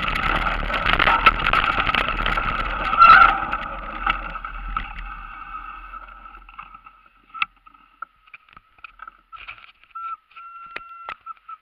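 Mountain bike rolling down a leaf-covered forest trail, with a steady rush of wind and tyre noise. The noise dies away over a few seconds as the bike slows and stops. Then it is nearly quiet, with a few scattered clicks and a faint thin whistle-like tone in short pieces.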